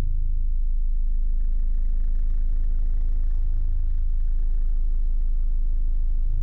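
A car audio system of several large subwoofers playing a loud, steady deep bass tone, heard from inside the car's cabin.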